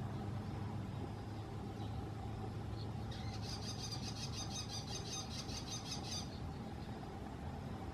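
Bull-headed shrike giving a rapid series of harsh, high-pitched notes, about five or six a second, for about three seconds starting about three seconds in. A steady low hum runs underneath.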